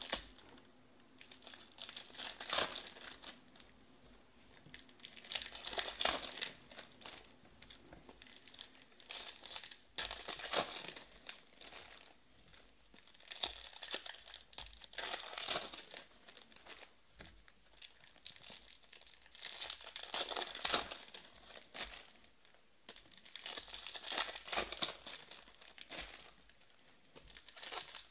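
Packs of Topps Finest baseball cards being torn open and the chromium cards shuffled through by hand: crinkling foil wrappers and sliding cards in repeated bursts a second or two apart.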